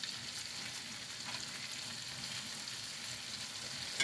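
Chicken and tomatoes sizzling steadily in butter and oil in a cast iron pan, with a few light utensil clicks and a sharper tap near the end.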